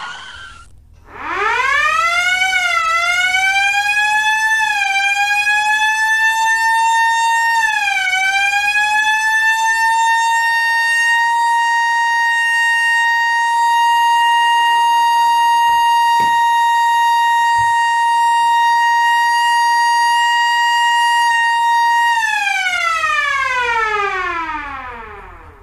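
Loud siren fitted to the car winding up in pitch, dipping and climbing again a few times, then holding one steady high wail before winding down near the end. It stays on by itself because its switch sticks on.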